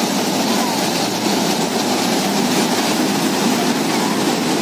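Steady fairground din: a dense, even rumble of noise with no pauses, from the running amusement rides and the crowd around them.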